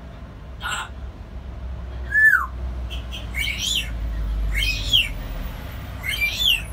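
African grey parrot calling: a short burst, then a falling whistle about two seconds in, then three similar rising-and-falling calls about a second and a half apart.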